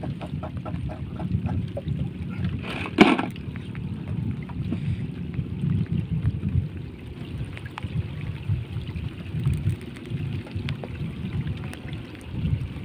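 Water lapping against the hull of a small wooden boat, with wind on the microphone. A quick run of light ticks at the start, and one sudden loud thump about three seconds in.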